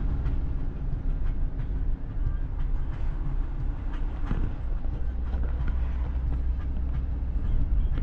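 Steady low rumble of a Mercedes van on the move: engine and road noise.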